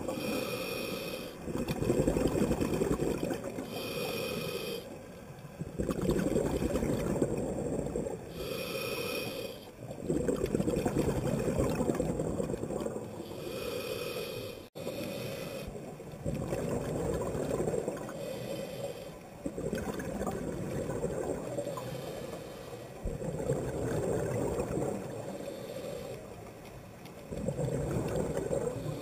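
Scuba diver breathing through a regulator: a short hissing inhale followed by a longer, low bubbling rush of exhaled air, repeating every four to five seconds.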